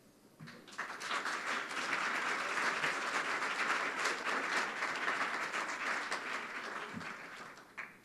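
Audience applauding. The applause builds up about a second in and dies away near the end.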